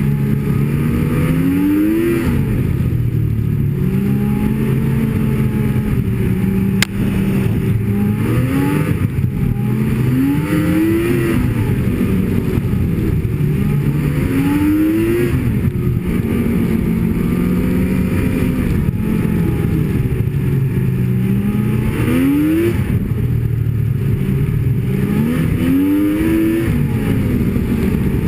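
Snowmobile engine running under way, its pitch rising and falling back as the throttle is worked, with five surges. A single sharp click about seven seconds in.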